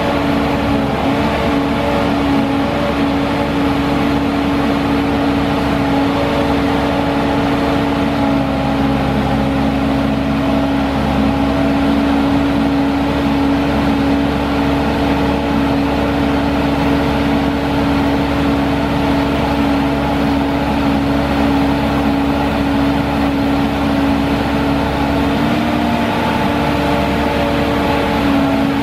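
Caterpillar C7 diesel engine of a Sandvik DX680 crawler drill rig running steadily at constant speed, with a steady even pitch and a slight change in tone about 26 seconds in.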